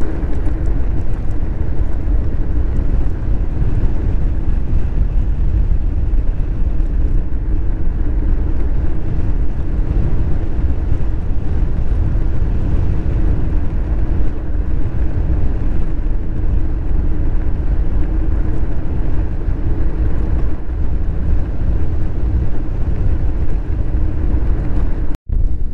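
Wind buffeting a bicycle-mounted action camera's microphone while riding on asphalt: a loud, steady low rumble with the faint hum of the tyres on the road. The sound cuts out for a moment near the end.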